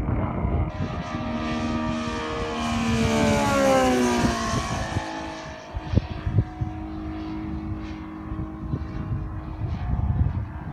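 Twin Saito FG-90R3 three-cylinder four-stroke radial engines of an RC model Tigercat flying past: the engine note grows louder, then drops in pitch as the plane passes about four seconds in, and runs on more faintly afterwards. A few sharp thumps of wind on the microphone come about six seconds in.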